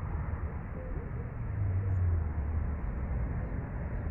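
Outdoor city ambience: a steady low rumble, typical of distant traffic, that swells for about a second in the middle.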